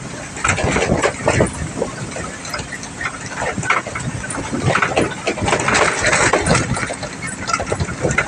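A truck driving downhill, its engine running under irregular knocking and rattling from the truck body, heard from the open cargo bed.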